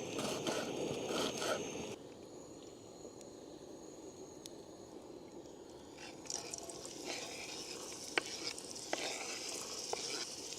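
Chopped onion frying in a hot pan: a steady sizzle with scraping stirring strokes from about six seconds in. The first two seconds hold light knocks, and the stretch between is quieter.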